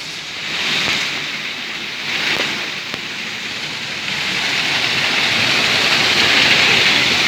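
Steady rush of falling or flowing water, growing louder about halfway through.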